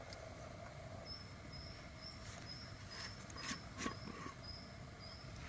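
A small bird repeats a short high note about twice a second. Two sharp clicks come a little before four seconds in, the loudest sounds, as a brass spirit burner is handled.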